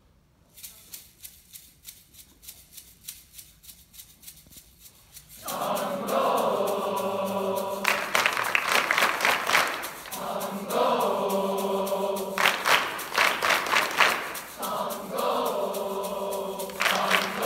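Large boys' choir clapping a steady beat, then singing in chords over the clapping from about five seconds in. The singing breaks off briefly a few times, leaving the claps.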